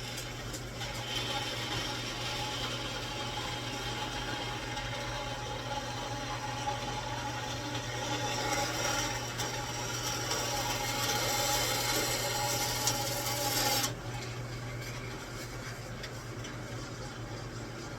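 A motor-driven machine-shop tool runs steadily, cutting, with a constant motor hum under a grinding mechanical noise that grows a little louder. It shuts off suddenly about 14 seconds in, leaving a fainter hum.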